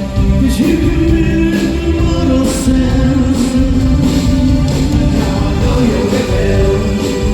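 Live rock band playing loud, with a lead voice singing over drums and guitars, heard from the audience in a large hall.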